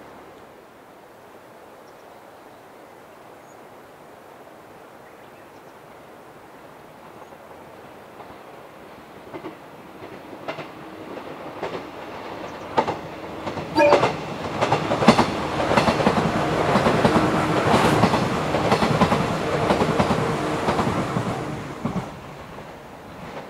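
JR 115 series six-car electric train approaching and passing. Rail-joint clicks come louder and closer together, then the cars rumble and clatter past loudly before the sound fades away near the end.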